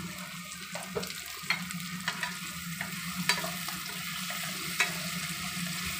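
Cucumber pieces sizzling in a frying pan as a wooden spatula stirs them, with several sharp clicks of the spatula against the pan.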